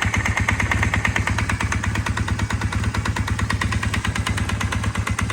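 Honda Rebel 450's parallel-twin engine running steadily with a rapid, even, horrible knocking that persists with the valves freshly adjusted; the owner puts it in the bottom end or the cylinder head.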